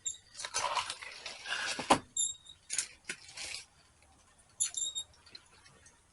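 Trash and packaging rustling and scraping as items are dug out of a dumpster, with a sharp knock about two seconds in and a few short high squeaks.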